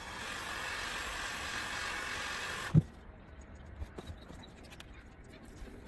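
Heat gun blowing steadily with a faint whine, then stopping with a sharp clunk just under three seconds in; a few faint clicks follow.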